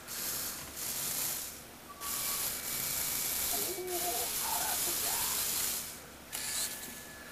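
Lego Technic electric motor and plastic gears whirring as the toy tricycle drives over carpet, in two spells with a short stop near two seconds in, dropping off a little after six seconds.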